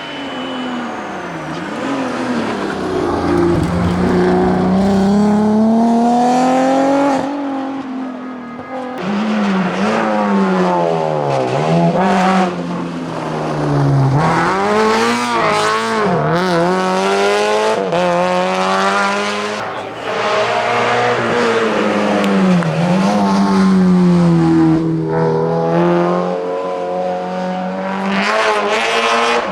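Rally car engines driven hard: first the Alfa Romeo 156 GTA's V6, then from about eight seconds in the Subaru BRZ's engine, each revving up and dropping back again and again through gear changes and braking.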